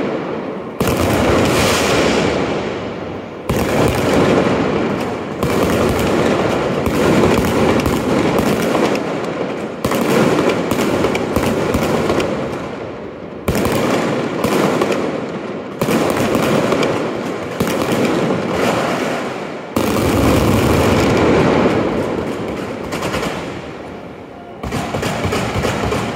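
Fireworks display going off in rapid volleys: a new loud burst every one to two seconds, each trailing off into dense crackling.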